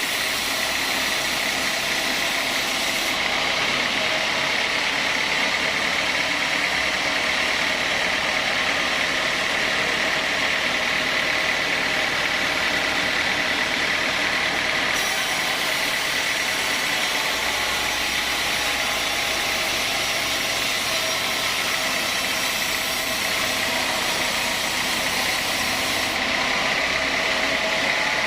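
Sawmill machinery running steadily: an even mechanical drone with a constant high whine.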